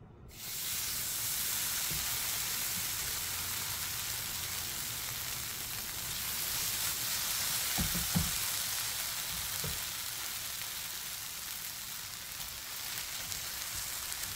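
Chili-marinated webfoot octopus (jjukkumi) sizzling as it is spooned into a hot wok. The sizzle starts suddenly just after the start, and a few dull knocks come about halfway through.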